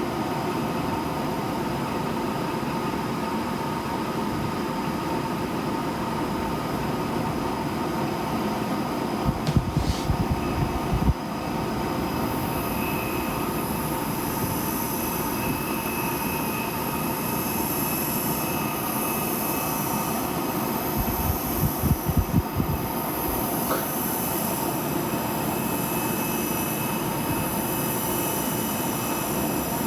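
Dyson Pure Hot+Cool HP04 fan running with a steady airflow hum. About twelve seconds in, a thin, very high-pitched whine, the mosquito-like noise that is the unit's fault, starts and keeps going. A few low bumps come around ten seconds in and again about twenty-two seconds in.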